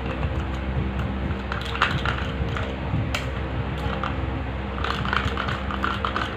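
A spoon stirring clear glue and Ariel detergent powder in a container to make slime, with a run of irregular small clicks and scrapes.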